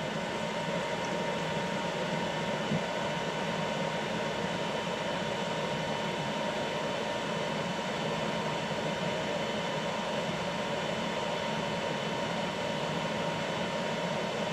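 Steady whir of a Qidi X-Max 3D printer's cooling fans, with a faint constant high hum, as the printer heats its nozzle and build plate before printing.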